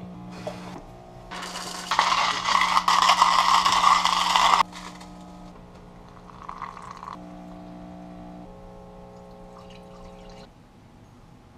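Hot water poured onto coffee grounds in a paper pour-over filter, then brewed coffee poured into a mug. A loud rushing stretch of about three seconds near the start cuts off abruptly, and the later pouring is fainter. Soft, sustained background music plays underneath.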